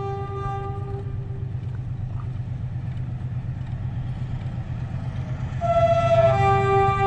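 Pakistan Railways RGE-24 diesel locomotive approaching with a steady low rumble, its horn sounding a held chord that stops about a second and a half in. About five and a half seconds in the horn blows again, louder, and is held.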